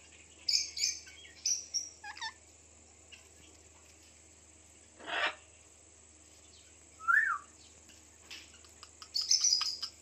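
Indian ringneck parakeets giving short, high-pitched chirps in scattered bursts, with a harsher squawk about halfway through and a quick cluster of chirps near the end.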